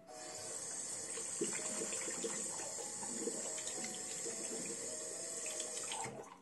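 Water running from a single-lever mixer tap into a bathroom sink, splashing over hands being washed under the stream. It cuts off suddenly near the end as the lever is pushed closed.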